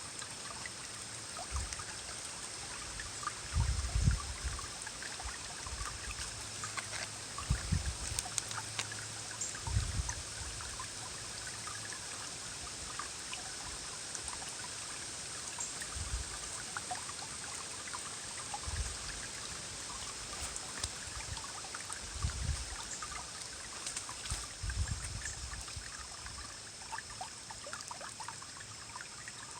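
Small forest stream rippling and churning over rocks, a steady rush of water full of small splashes and gurgles. Brief low thuds come through several times, the loudest about four and ten seconds in.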